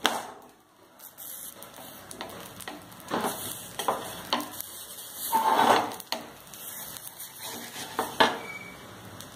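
Wooden spatula scraping under a cooked vellayappam on a dosa pan to lift it, in several short scrapes, the longest about halfway through, over a low sizzle from the hot pan.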